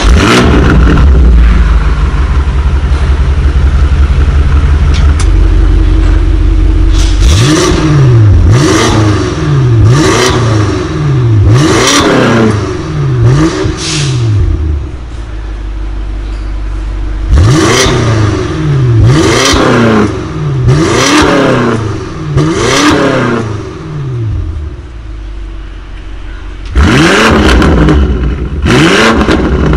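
BMW M5 F90's twin-turbo V8 through a non-OPF Akrapovic Evolution Line titanium exhaust, stationary. It idles, then is blipped in two runs of about five short revs, each rising and falling, with idle between. Near the end it goes louder again in Sport+ mode.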